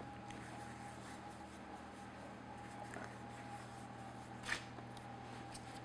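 Faint rubbing of hands rolling a rope of pretzel dough on a granite countertop, over a low steady hum. There is a brief sharper tap about four and a half seconds in.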